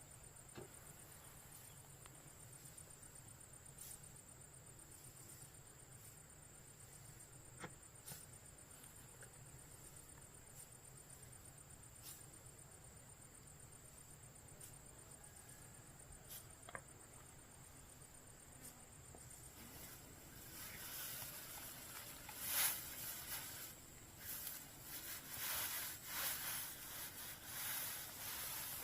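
Insects trilling steadily at a high pitch over a faint low hum; about two-thirds of the way in, a louder run of rustling and crackling with sharp ticks sets in and covers the trill.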